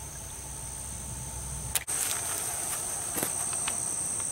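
Insect chorus of steady high-pitched trilling. It grows louder after a sharp click about two seconds in, with a low rumble before the click and a few light handling knocks after it.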